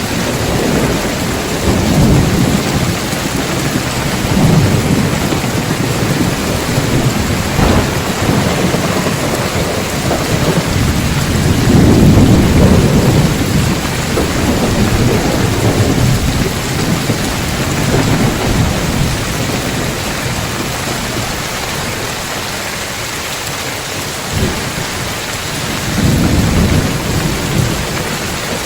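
Heavy rain falling steadily on roof tiles, with thunder rumbling low again and again, loudest near the middle and once more near the end.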